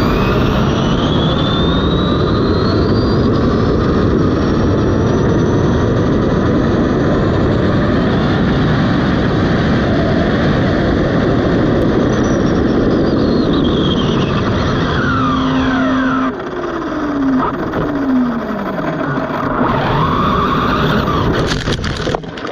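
Onboard sound of an Arrma Limitless RC car on a top-speed run. The brushless electric motor's whine climbs steadily in pitch over a loud rush of wind and tyre noise, then drops away in several falling whines as the car slows. Near the end come a few sharp knocks as the car runs off the road into the dirt, then the sound cuts off.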